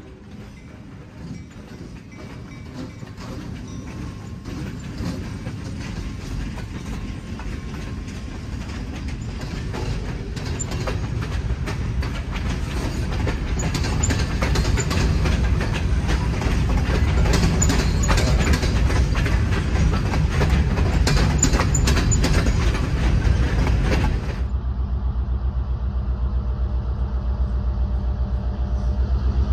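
Diesel freight train drawing near and rolling past, growing steadily louder, with its wheels clicking over the rail joints. About 24 seconds in, the sound cuts abruptly to a steadier low engine hum.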